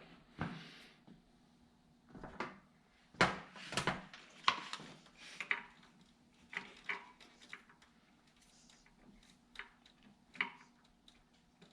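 Irregular clicks, knocks and light clatter of small parts and tools being handled and sorted through, with a cluster of sharper knocks about three to five seconds in.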